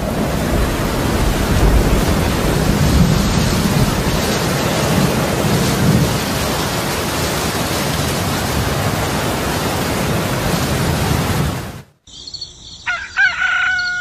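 Heavy rain with rumbling thunder, a dense steady rush that cuts off suddenly about twelve seconds in. Near the end a rooster crows.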